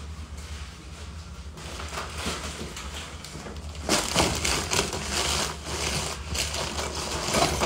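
Plastic USPS mailer bag crinkling and rustling as it is handled close to the microphone. It starts softly and turns much louder about four seconds in.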